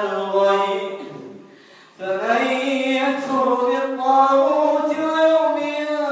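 A man's voice chanting Quranic recitation in long, drawn-out melodic notes. It fades into a short pause about a second in and resumes at about two seconds.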